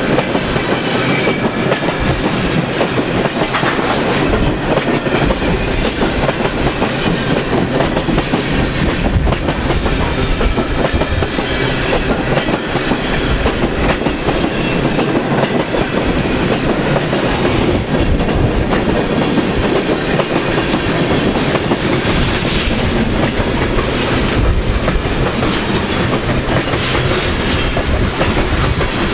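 Railroad cars of a passing train rolling by, their wheels clattering steadily over the rails.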